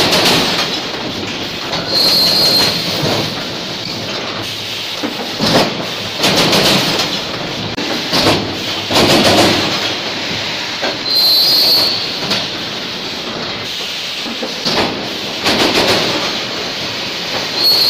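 EPS 3D wire mesh panel welding machine running, with repeated clattering from its pneumatic cylinders and welding heads. A short hiss of released compressed air comes about every nine seconds.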